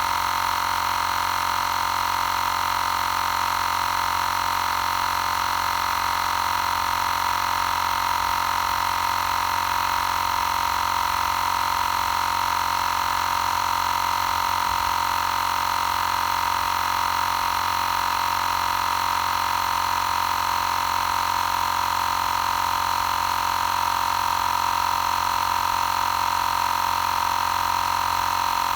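Xiaomi Portable Electric Air Compressor 2 running continuously as it pumps up a spare tyre, a steady whine that holds one pitch throughout.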